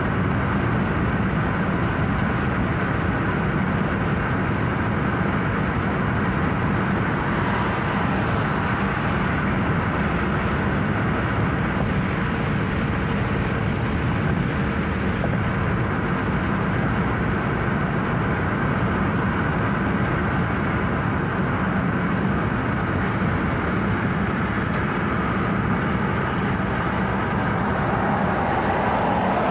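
Steady road noise of a car driving at freeway speed: tyres and engine making an even, low rumble that does not change.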